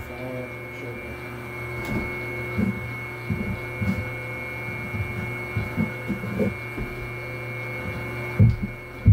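Dough mixer motor running with a steady hum and a thin high whine, with irregular soft knocks and a louder knock near the end.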